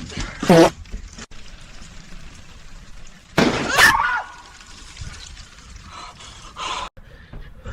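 A few sudden outbursts: a short sound falling in pitch about half a second in, a loud noisy burst with a wavering pitched cry in it about three and a half seconds in, and a fainter burst around six seconds.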